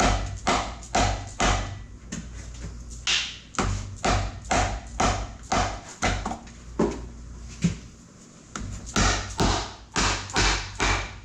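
Hammer blows tapping out an engine's rear main seal, a steady run of sharp taps about two a second with a short pause near eight seconds in.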